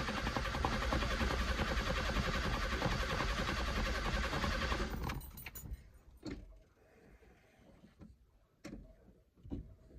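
Fiat 147 engine being cranked by its starter motor without catching. The cranking stops suddenly about five seconds in, followed by a few faint clicks.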